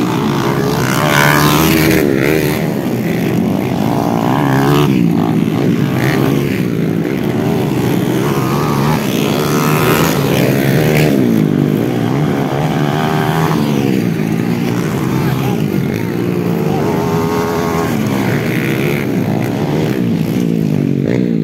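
Several underbone motorcycle engines racing at once, revving hard, with their pitch rising and falling continuously as the riders accelerate and ease off.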